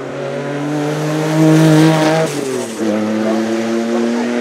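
Porsche 961's 2.9-litre twin-turbo flat-six race engine accelerating hard past, rising in pitch and loudest about a second and a half in. Just after two seconds the pitch falls sharply as the car goes by, then climbs steadily again as it pulls away.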